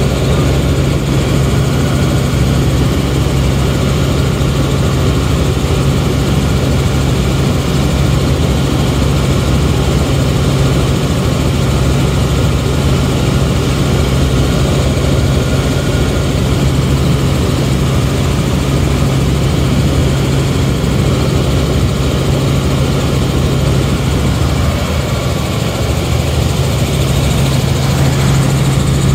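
Helicopter engine and rotor noise heard from inside the cabin in flight: a loud, steady drone with a strong low hum.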